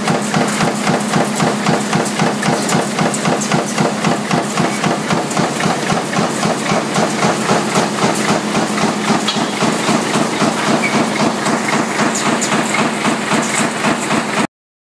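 Punch press running continuously on a motor stator and rotor lamination stamping line. It makes a rapid, evenly spaced rhythm of stamping strokes, about three a second, over a steady machine hum, and cuts off suddenly near the end.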